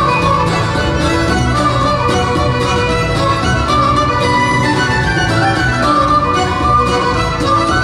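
Live folk band playing a lively fiddle-led dance tune with a steady beat, the fiddle carrying the melody over acoustic guitar, bass guitar and Celtic harp.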